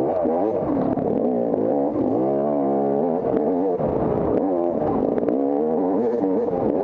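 Off-road dirt bike engine revving up and down over and over as the throttle is worked on the trail, with a longer pull rising steadily about two seconds in. Scattered sharp clicks and clatter.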